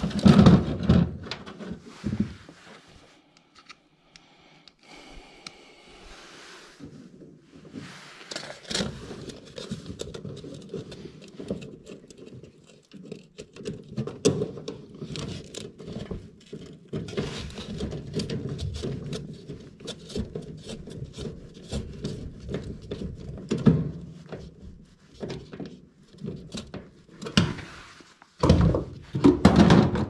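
Scraping, clicking and rustling of hands and tools working on wiring inside an air handler's control compartment, with louder thumps at the start and in the last couple of seconds.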